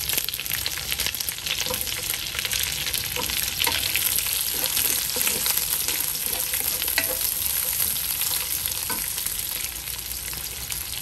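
Onion wedges and minced garlic frying in hot oil in a wok: a steady sizzling crackle, with the scrape and tap of a wooden spatula stirring them.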